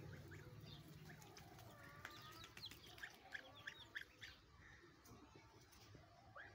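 Faint bird calls: a run of short, high chirps, densest from about two to four seconds in.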